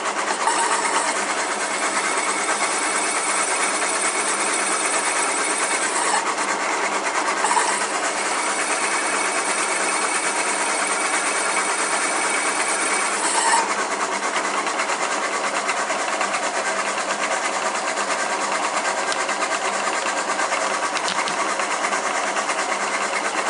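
Milling machine spindle turning a large metal step drill bit as it is forced down into a 7075 aluminium plate. A high-pitched cutting whine rides over the steady running of the mill for the first half, breaking off about six seconds in and returning until about thirteen seconds in; after that the mill runs on steadily.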